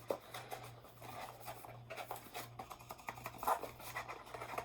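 Cardboard packaging being handled: small scattered taps, scrapes and rustles, over a faint steady low hum.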